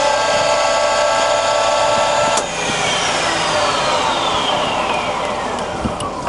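Colchester Student 1800 centre lathe spindle and headstock gears running at the top speed of 1800 rpm with a steady whine. About two and a half seconds in, a click, and the whine falls steadily in pitch as the spindle winds down.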